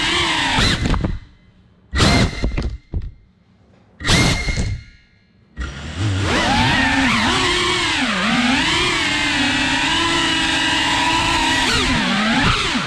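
FPV quadcopter's motors and propellers whining, the pitch sliding up and down with the throttle. Between about one and six seconds in, the sound drops away three times with two short loud bursts in between, as the throttle is cut and punched, then a steady whine returns with a wavering pitch.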